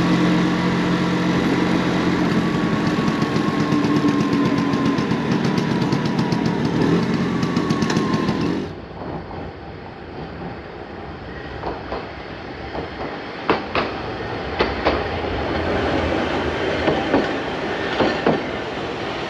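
Hankai Tramway streetcar running: a steady hum with a whine that slowly falls in pitch, then, after an abrupt cut, a quieter stretch of rolling noise with scattered sharp clicks and knocks of the wheels on the rails.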